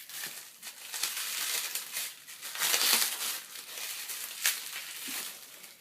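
Packing wrap being pulled and torn off a boxed part, crinkling and rustling in uneven bursts, with a short sharp click near the end.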